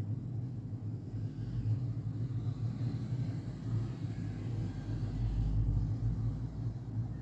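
Steady low background rumble with no speech, swelling deeper briefly about five seconds in.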